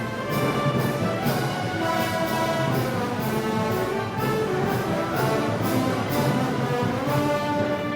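Brass band playing Moros y Cristianos festival music, sustained brass chords over a steady beat of drum and cymbal strokes about twice a second.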